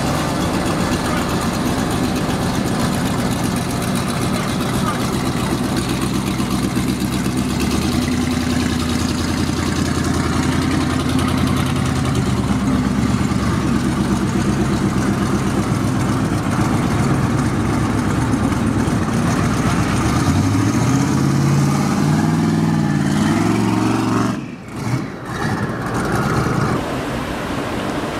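1970 Chevrolet Chevelle SS convertible's twin-turbo V8 running at a steady idle, then revving up about twenty seconds in, its pitch rising over a few seconds.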